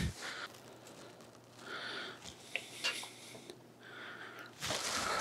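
A man breathing heavily a few times between tasks, with two light clicks about halfway through; the longest and loudest breath comes near the end.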